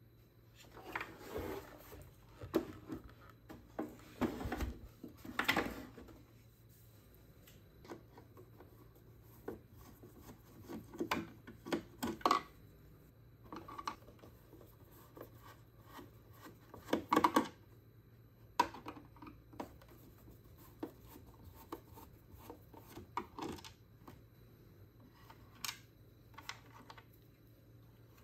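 A screwdriver backing screws out of the plastic chassis of a Zodiac TX35 robotic pool cleaner, and hands handling its plastic parts. Scattered scrapes, rubs and clicks come at uneven intervals, with the busiest stretches in the first few seconds and again a little past the middle.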